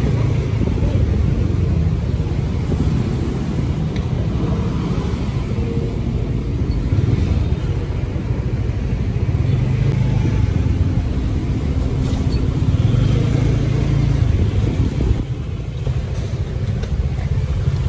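Steady low rumble of a moving vehicle, engine and road noise together, dipping briefly about fifteen seconds in.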